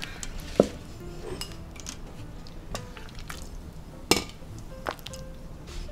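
A wooden spoon stirring and scooping thick chili, clinking and knocking against the stainless steel inner pot of an Instant Pot and a ceramic bowl: a handful of scattered sharp knocks, the sharpest about half a second in.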